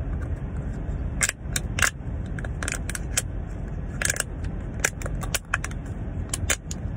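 Thin clear plastic blister tray crinkling and clicking as fingers press and bend it: a string of sharp, irregular crackles. Under it, the steady low rumble of the car inside the cabin.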